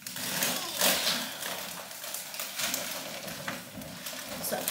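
Shopping bags rustling as they are lifted and handled, in a run of uneven rustles with the loudest about a second in.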